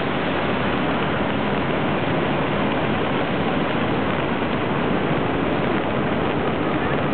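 Rain falling steadily: a dense, even hiss with no breaks or single strikes standing out.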